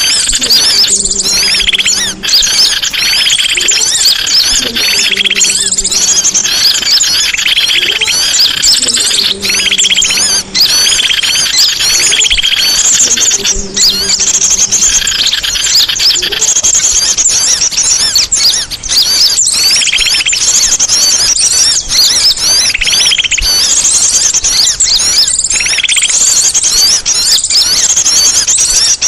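Songbird singing a loud, continuous song of rapid chirps and trills with only brief pauses.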